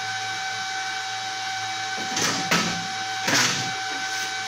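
Steady hum and whine of a powered-on MIG welding machine at idle. Two brief rustling, handling noises come about two seconds and three and a half seconds in.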